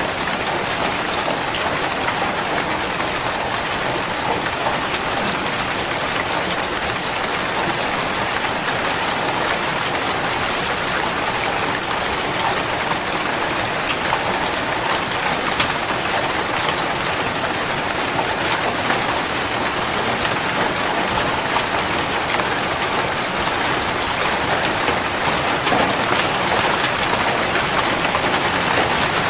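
Steady rain falling: a dense, even patter of drops that keeps up without a break.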